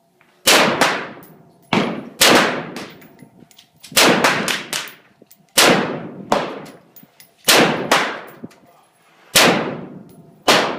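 Colt LE6920 AR-15 rifle fired in slow single shots: about eight sharp cracks, one to two seconds apart, each followed by a long echoing tail.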